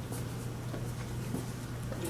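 Room tone with a steady low hum and a few faint small clicks.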